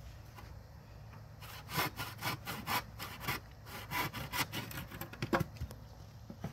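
Wood being sawn by hand: a run of quick back-and-forth saw strokes that starts about a second and a half in and stops near the end.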